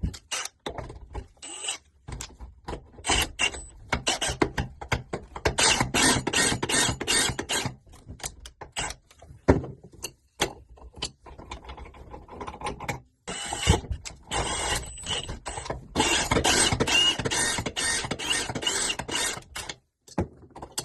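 Tap reseating tool worked by hand inside the tap body, its cutter grinding the brass washer seat in rapid rasping strokes, in two long spells with a quieter stretch between. The worn seat is being cut smooth so that a new washer will seal and stop the leak.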